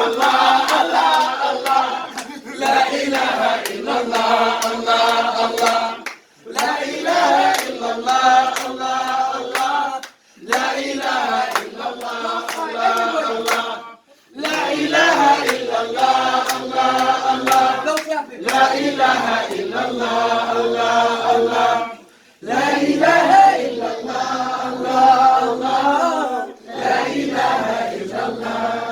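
A group of voices sings a nasheed chorus a cappella, in repeated phrases of about four seconds with brief breaths between them, over hand claps.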